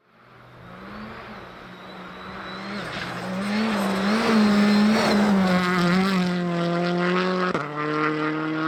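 Citroën C3 rally car's turbocharged four-cylinder engine at high revs, fading in and growing louder as the car comes through the bend, the pitch dipping and rising with lifts and gear changes, with a rush of tyres and spraying snow as it passes. About seven and a half seconds in, the sound switches suddenly to a lower, steady engine note.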